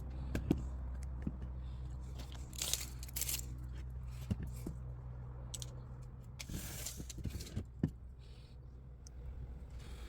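A steady low machine hum, with scattered clicks and a couple of short scraping, rustling stretches of things being handled.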